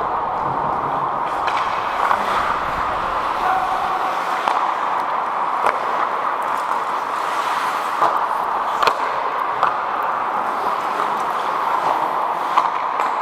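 Ice hockey play heard from on the ice: a steady rushing hiss with scattered sharp clacks of sticks and puck.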